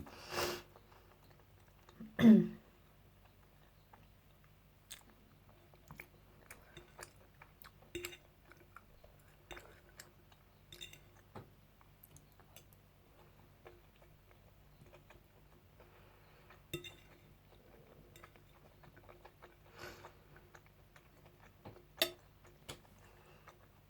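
Close-up chewing and mouth sounds of a person eating a fish finger sandwich and rice: soft, scattered wet clicks and smacks, with a couple of louder mouth sounds in the first few seconds.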